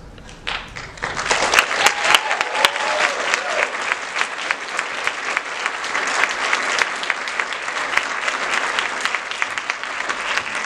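Audience applauding as a stage dance piece ends, starting about half a second in and swelling to full, steady clapping within a second, with a brief cheer from someone in the crowd about two seconds in.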